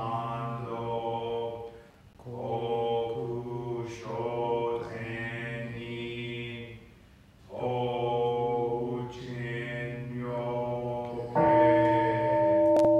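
A man chanting a Japanese Buddhist sutra alone in long, held, sung phrases with short pauses between them. About eleven seconds in, a bowl-shaped temple bell is struck once and rings on, ending the phrase.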